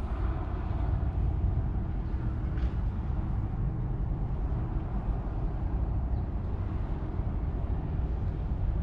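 Wind buffeting the microphone outdoors: a steady, low rushing noise.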